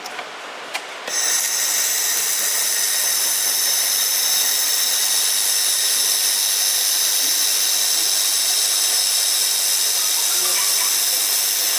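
1500 W air-cooled handheld laser welder firing a weld on stainless steel: a steady high hiss with whistling tones starts about a second in, holds evenly for about ten seconds and fades near the end.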